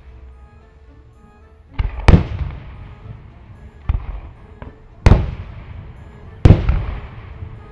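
Aerial firework shells bursting: loud bangs about two, five and six and a half seconds in, with smaller ones near four seconds, each trailing off in a rolling echo.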